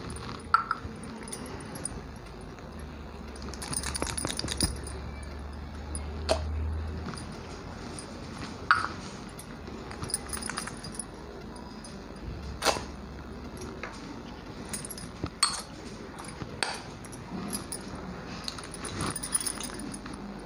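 Irregular metallic clinks and taps from small stainless-steel tumblers being handled as frozen kulfi is worked out of them and laid on a plastic plate.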